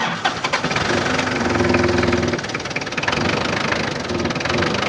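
The diesel engine of an Isuzu-powered TCM forklift running steadily at idle with a knocking diesel clatter, just after its engine oil has been changed.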